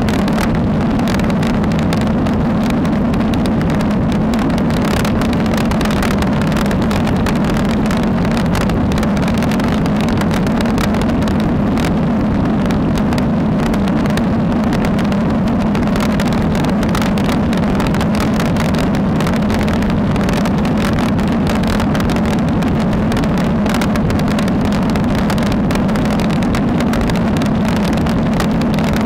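Steady wind and road rumble on a Tectectec Xpro 1 action camera carried along on a moving road bike: a loud, unchanging rushing noise with a low hum, and no separate events.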